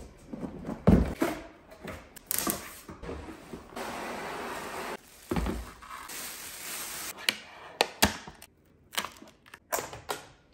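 Unboxing sounds: a heavy thunk as the cardboard box lands on the kitchen counter about a second in, then plastic wrapping rustling as the packed appliance is pulled out, and a string of knocks and clicks as parts are set down on the worktop near the end.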